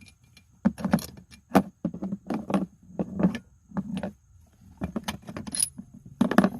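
Metal parts clinking and knocking: about a dozen irregular, sharp metallic clinks as parts of a car's rear wheel bearing hub assembly are handled and removed.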